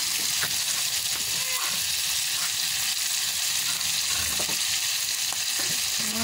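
Shrimp deep-frying in hot oil in a wok, a steady sizzle, with a few light clicks of a metal ladle stirring in the pan.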